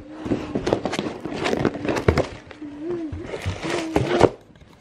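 Close handling noise with rustling and knocks as a cardboard shoebox is opened by hand, mixed with a few short low hum-like tones; it stops abruptly near the end.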